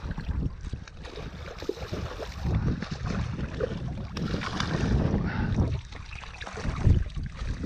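Water splashing as a hooked sea trout thrashes at the surface and is drawn into a landing net, over wind buffeting the microphone, with a louder splash or knock near the end.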